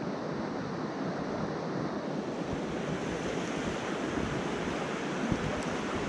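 Mountain stream running over rocks and shallow riffles: a steady rush of water.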